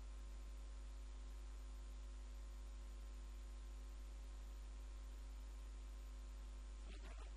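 Low, steady electrical mains hum with a faint hiss and thin steady tones from the sound system, nothing else happening; a brief faint sound comes in just before the end.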